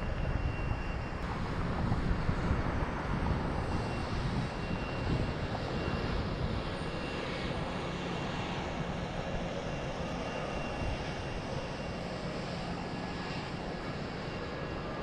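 Jet airliner engine noise, a steady rushing sound that is loudest in the first few seconds and eases a little afterwards, from a Boeing 757 landing and rolling out on the runway.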